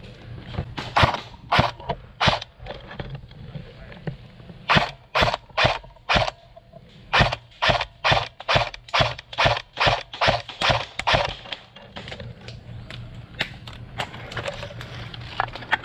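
Airsoft rifle firing single shots, sharp cracks about two a second: three early on, then a steady run of about fifteen, with a few fainter cracks of incoming fire near the end.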